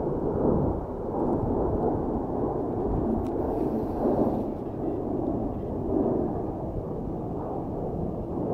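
C-17 Globemaster III military transport jet flying low overhead: a steady, deep roar from its four turbofan engines, swelling and easing a little as it passes.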